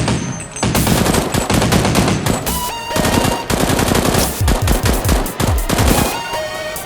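Rapid bursts of gunfire, with music underneath.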